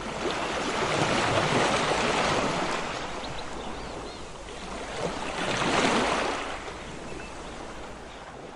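Sea waves breaking on a beach. The surf swells twice, first about a second in and again near six seconds in.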